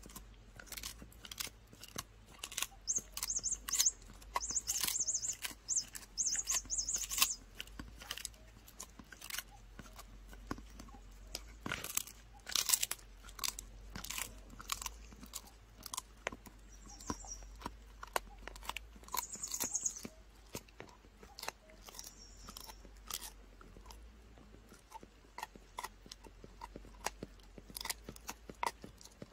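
Dog chewing a dried pig ear: irregular sharp crunches and gnawing, coming in clusters, loudest in the first half.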